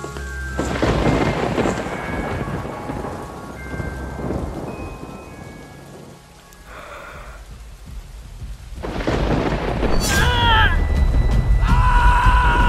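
Thunderstorm: thunder rumbles over rain from about half a second in and fades away, then a second, louder rumble builds near the end. During it a high voice cries out twice.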